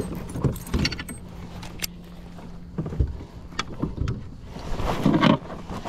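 Handling noises on a fishing kayak: scattered knocks, clicks and light rattles, with a louder muffled burst about five seconds in.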